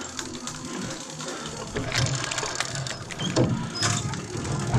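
Mechanical clicking and rattling, uneven, over a steady low hum.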